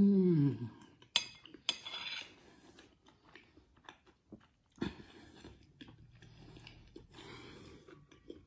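A man's long, falling 'mmm' of pleasure as he bites into a rolled slice of chicken tikka pizza. He then chews, with several sharp mouth clicks and crunches about one and two seconds in and again near the middle.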